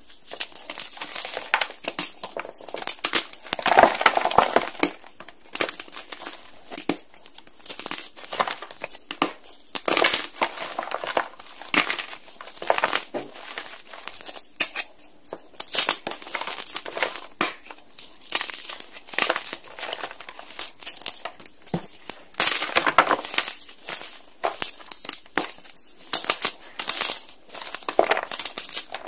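Blocks of dyed gym chalk being crushed and crumbled by hand: a dense, irregular crunching and crackling, with louder squeezes every few seconds.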